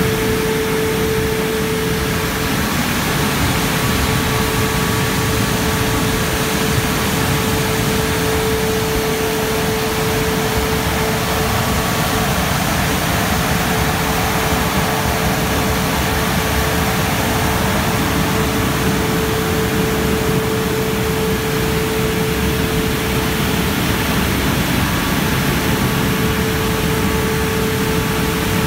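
Christ Genius Vitesse rollover car wash gantry running as it travels over the car: a steady, even rush with a constant mid-pitched hum that never lets up.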